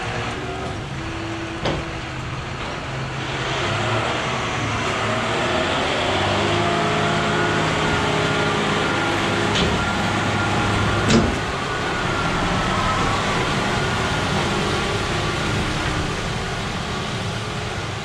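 John Deere tractor and its PTO-driven feed mixer wagon running as they pass close by, discharging feed. The engine sound swells as it passes, with a faint whine that rises and falls. Two sharp knocks come about a second and a half apart near the middle.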